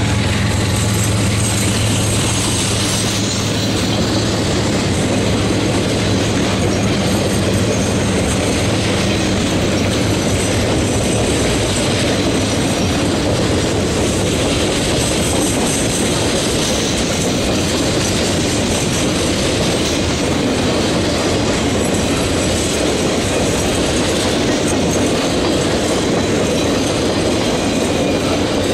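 A Norfolk Southern Triple Crown RoadRailer train, highway trailers riding on rail bogies, rolling steadily past: a continuous rumble and clatter of steel wheels on the rails.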